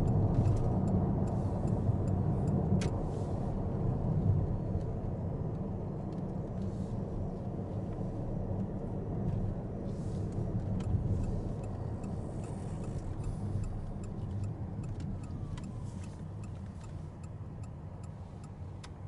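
Mitsubishi Outlander PHEV on the expressway: a steady low road-and-tyre rumble that slowly fades as the car slows into a service area, with a few faint ticks.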